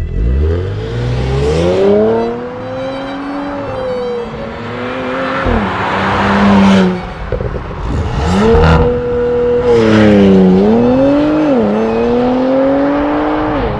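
Porsche Macan Turbo's twin-turbo V6 through its sport exhaust, accelerating hard. The engine note climbs, then drops sharply at each upshift, several times over.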